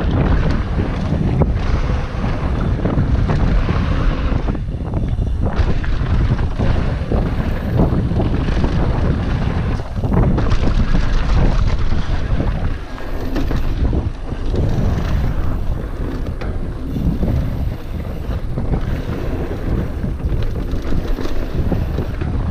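Wind buffeting the microphone of a mountain bike descending a dirt trail at speed, mixed with a steady rumble and rattle from the tyres and bike over the rough ground.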